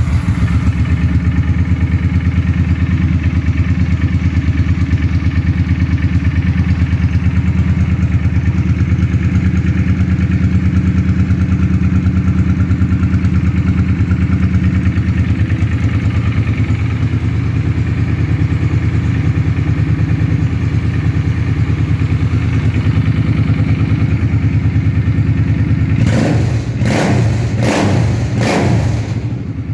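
Suzuki Boulevard 800's V-twin engine idling steadily through a JJ aftermarket exhaust, very loud, with a few quick throttle blips near the end.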